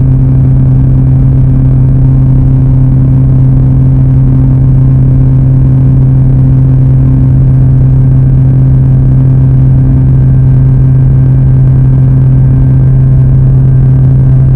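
Emergency alert alarm: a loud, low, steady tone over a noisy buzz, holding unchanged without a break.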